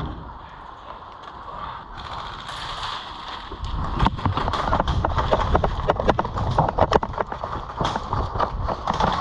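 Quick, irregular footsteps and clattering of worn gear close to a body-mounted camera, starting about three and a half seconds in, over a low rumble of handling and movement.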